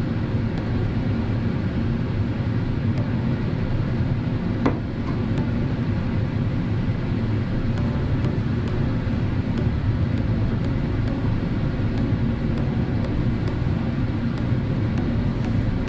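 Steady low rumbling background noise, even throughout, with one short click a little under five seconds in.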